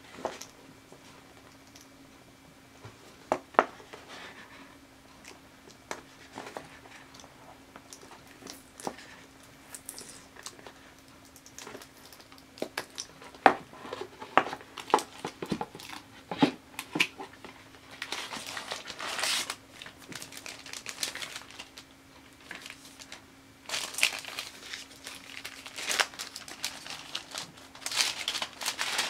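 Unboxing handling noise: taps and scrapes of a cardboard gift box and its lid being opened, then paper crinkling and rustling as a wallet is unwrapped from its paper packing. The rustling comes in bursts, heaviest in the second half.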